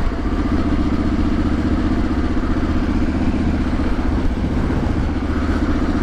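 Triumph Street Scrambler 900's parallel-twin engine running on the move at a steady, even engine speed, with no big change in revs.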